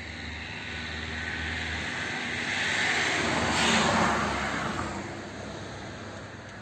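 A vehicle passing by: its noise swells to a peak about four seconds in, then fades away.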